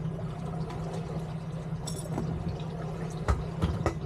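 Boat engine running steadily at trolling speed, with water sloshing and splashing against the hull. A couple of sharp knocks come near the end.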